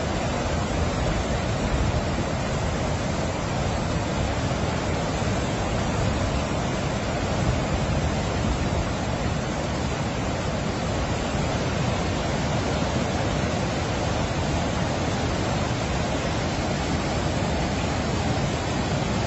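Floodwater pouring over a dam spillway and through rocky rapids: a steady, unbroken rush of water.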